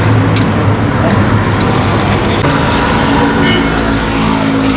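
Vehicle engine running steadily amid street traffic. Its pitch settles into a steadier hum partway through.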